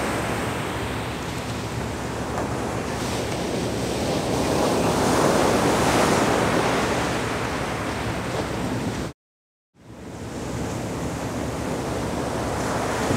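Ocean surf breaking and washing up a beach, with wind buffeting the microphone. The surf swells louder around the middle, and the sound cuts out completely for about half a second a little past two-thirds of the way through.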